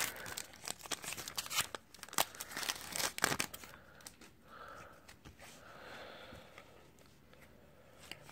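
Foil wrapper of an Upper Deck hockey card pack crinkling and tearing as the pack is opened and emptied, a quick run of sharp crackles. After about three and a half seconds it gives way to a faint rustle of cards being handled.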